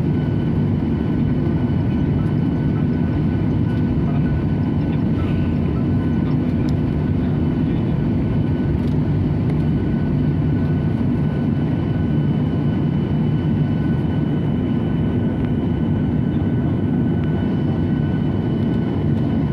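Jet airliner's engines heard from inside the passenger cabin: a steady low rumble with a few thin, steady whining tones on top.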